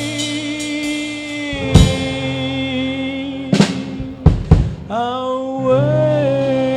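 A live blues band holds a sustained chord while the drummer hits the drum kit hard a few times. Near the end a note is bent and shaken with vibrato, as in the closing bars of a song.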